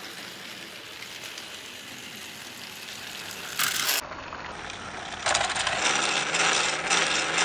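HO-scale toy steam locomotive running on its track: a steady mechanical whirr and rattle with many fine clicks. The rattle grows louder and denser from about five seconds in.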